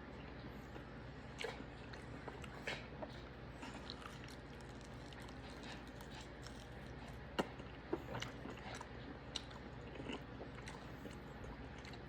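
A person eating steak, chewing and biting with scattered small clicks, the sharpest about seven seconds in, over a low steady background hum.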